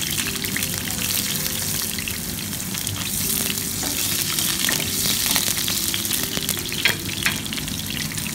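Garlic and onion sizzling and crackling in hot oil in a nonstick wok, stirred with a wooden spatula. Two sharp clicks about seven seconds in.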